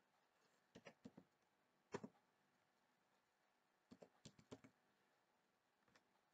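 Faint clicking of a computer keyboard and mouse: keystrokes in a few short clusters of taps, with quiet gaps between.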